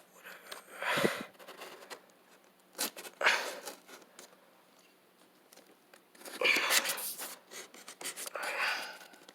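Cardboard box and packing being handled and pulled open: four short rustling, scraping noises with a few sharp clicks in between.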